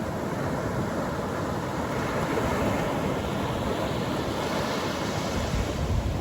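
Atlantic Ocean surf breaking and washing up the beach, a steady rush with a wave's hiss swelling about halfway through and a low rumble growing near the end.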